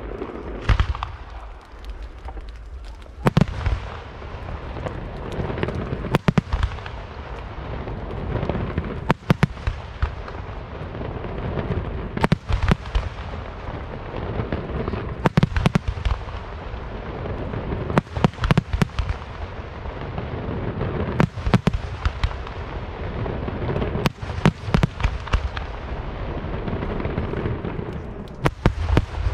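Aerial firework shells bursting: a cluster of sharp booms about every three seconds, with a steady noisy hiss between the bursts.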